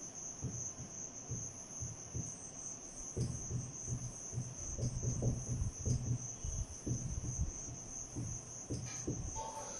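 Whiteboard marker writing on a whiteboard: a string of soft, irregular scratches and taps from the pen strokes, thickest in the middle. Under it runs a steady high-pitched whine.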